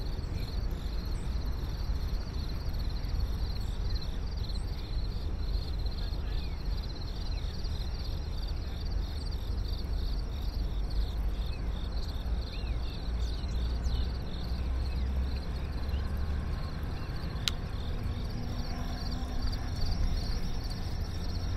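Crickets chirping in a fast, steady run of high pulses over a constant low city rumble, with a few brief bird chirps and one sharp click near the end.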